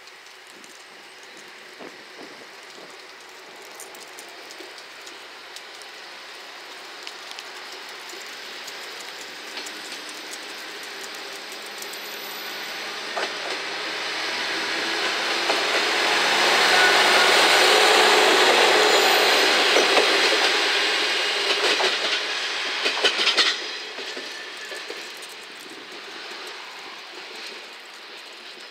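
JR Shikoku 1000 series single-car diesel railcar pulling away from a station and passing close by. Its engine grows steadily louder as it approaches. Past the middle the wheels clatter over the rail joints in a run of sharp clicks that stops abruptly, and the sound then fades away.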